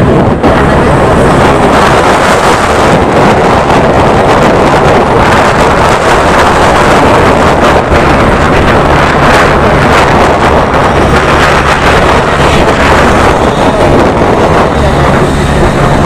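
Steady wind rush over the microphone of a moving scooter, with the scooter's small engine humming underneath.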